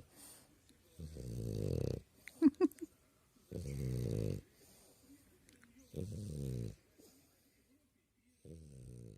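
A pet snoring: four slow, rattling snores about two and a half seconds apart, each lasting under a second. A brief high squeak comes between the first two, and it is the loudest sound.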